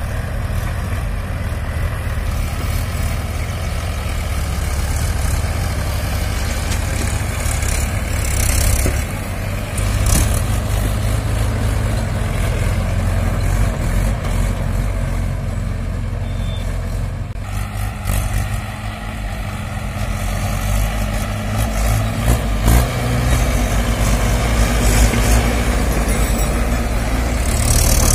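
Mahindra tractor diesel engines running under heavy load, working to drag a stuck, sugarcane-laden trailer rig out of soft ground. The engine sound shifts in level as the pull goes on.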